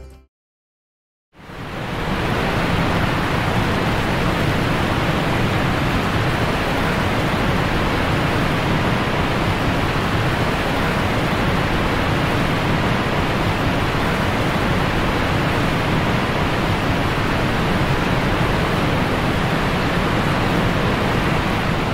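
Mountain waterfall and cascade rushing steadily over boulders and rock slabs, starting about a second in after a brief silence.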